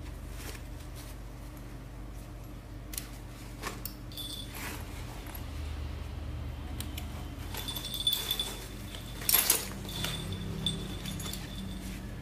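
Straps and plastic buckles of a Code of Bell X-Pod sling bag being handled: scattered rustles and clicks. The handling gets busier toward the end, with the loudest pair of sharp clicks about nine seconds in.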